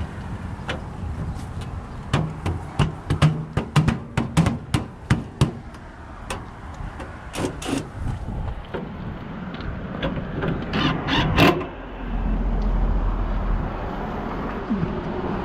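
Sheet-metal clanks and sharp knocks as the top panel of an air-conditioning condenser unit is set in place and fastened down: a quick run of knocks about two seconds in, a few more around seven seconds, and another cluster near eleven seconds.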